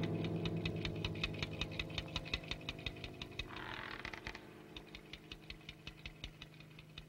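Cartoon soundtrack: rapid, even ticking, about six ticks a second, over a held low chord, with a soft swish about three and a half seconds in.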